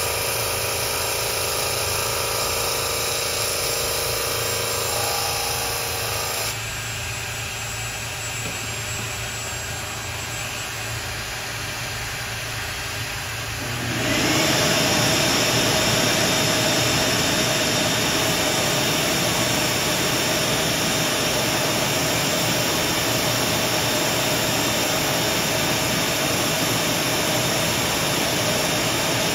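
Ryobi cordless drill spinning the sanding drum of a homemade mini drum sander, running steadily with a hum of several tones as a strip of wood is fed under the drum. About halfway through, a louder steady rushing of a vacuum dust extractor starts and runs with the sander.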